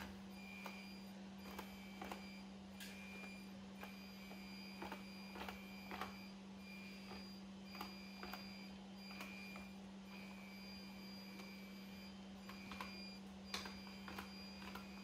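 mBot Neo coding robot's small drive motors whining in short, repeated spells as it drives forward and turns, with scattered light clicks and taps. A steady low hum lies underneath.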